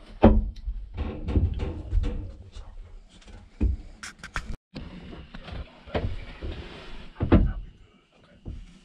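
Hollow thumps, knocks and scuffs of people climbing into an enclosed box hunting blind and moving about on its floor, with the blind's door bumping. The sounds come in irregular bursts, several of them sharp knocks.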